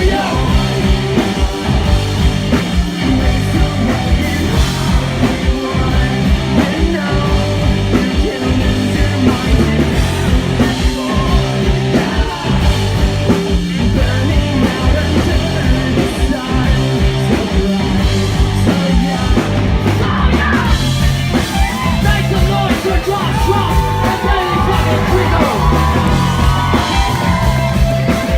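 Punk rock band playing loud and live: distorted guitars, bass and pounding drums, with singing in the mix.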